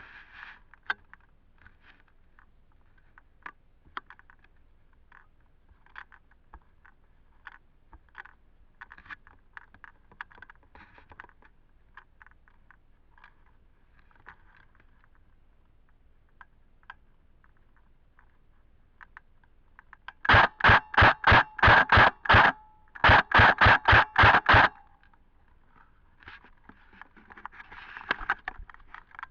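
Two quick strings of airsoft gun shots about 20 s in, each of eight or nine sharp reports at roughly four a second, separated by a short pause. Around them are scattered faint clicks and rustling.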